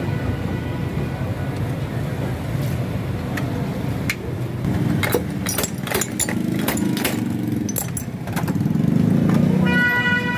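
Roadside street noise: a steady traffic rumble, with a run of sharp clinks from the glass soda bottles at the stall around the middle. A vehicle horn sounds near the end.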